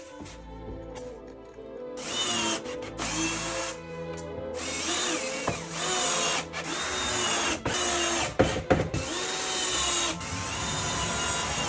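Compact cordless drill-driver driving screws through a dishwasher door's steel inner frame into its wooden decor panel. It starts about two seconds in and runs in repeated bursts, its motor whine rising and falling with each one. A few sharp clicks come about three-quarters of the way through.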